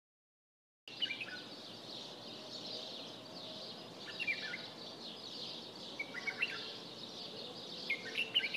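Birds chirping in short, quick phrases about every two seconds over a steady high hiss of outdoor ambience, starting about a second in.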